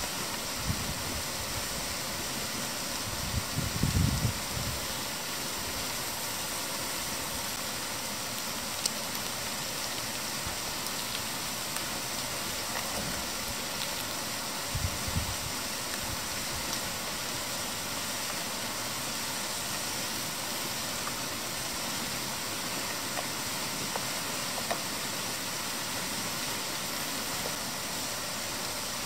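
Bread and egg frying in oil in a small pan over a spirit stove: a steady sizzle with faint scattered pops. Two dull knocks from handling the pan, about four seconds in and again near the middle.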